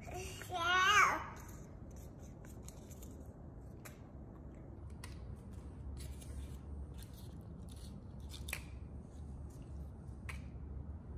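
A toddler makes a brief vocal sound about half a second in. After it come scattered light clicks and taps as cardboard tube rings are handled and slid onto a wooden dowel.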